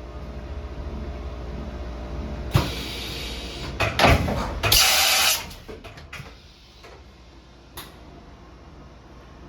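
Hardinge Bridgeport 1000 XP3 CNC vertical machining center running with a steady hum and low rumble. A series of sharp mechanical clunks comes with a loud rushing air hiss, and the hum and rumble stop about five seconds in. A few lighter clicks follow.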